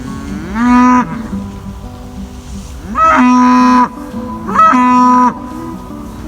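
Cattle mooing: three loud calls, each rising at the start and then held, the second and third longer than the first.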